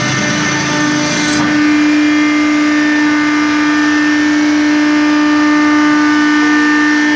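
Hydraulic mooring winch on a ship's deck running under lever control: a loud, steady mechanical hum holding one pitch, with fainter whining tones above it. A high hiss over it stops about a second and a half in.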